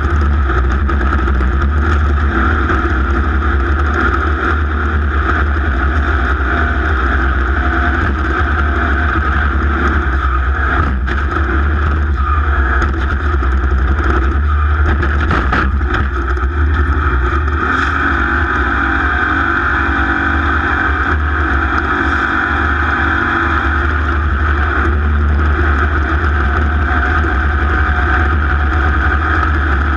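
Off-road race car engine running steadily at speed for the whole stretch.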